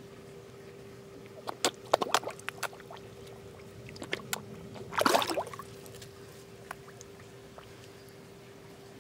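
Water splashing at a pond's surface as koi and goldfish crowd up: a quick run of short splashes about two seconds in, a couple more around four seconds, and a longer, louder splash about five seconds in.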